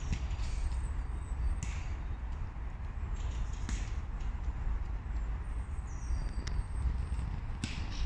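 A woodpecker making a few short, sharp sounds, spaced a couple of seconds apart, with a quick cluster of them near the end, over a steady low background rumble.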